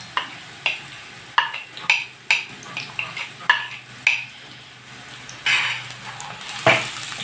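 Sliced onions and ground spices frying in oil in a frying pan, with a steady sizzle, while a wooden spatula stirs them, scraping and knocking against the pan about twice a second. About five and a half seconds in there is a longer, louder scrape, and near the end a single sharp knock.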